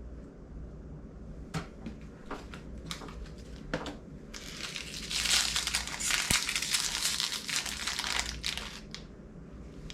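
Small toy packaging being torn open and crinkled by hand: a few light clicks and rustles, then about four and a half seconds of dense crinkling from about four seconds in.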